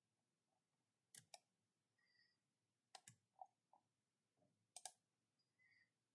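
Near silence broken by faint computer mouse clicks in three short clusters of two or three clicks each.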